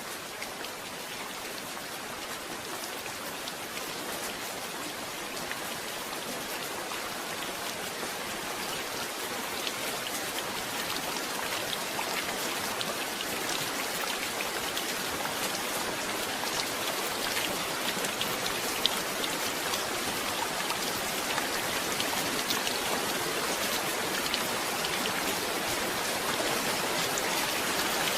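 Steady rain falling, a dense hiss with scattered sharp drop ticks, growing gradually louder.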